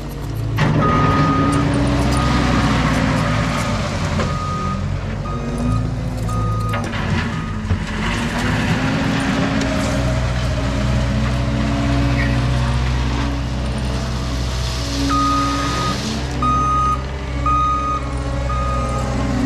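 Cat 299D3 compact track loader's diesel engine running and revving up and down as it pushes and spreads gravel. A backup alarm beeps repeatedly while it reverses, for the first several seconds and again near the end.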